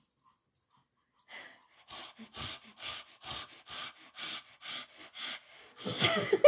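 Pomeranians panting, out of breath from running a chase game: short breathy pants about twice a second, starting after a moment of quiet, with a louder breathy burst near the end.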